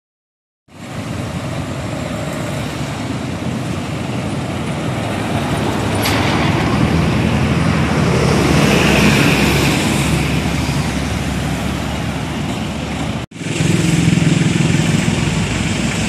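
Road traffic: motor vehicles passing on a road, swelling to the loudest point about halfway through as a vehicle goes by. After a sudden cut near the end, a vehicle engine runs close by with a steady low hum.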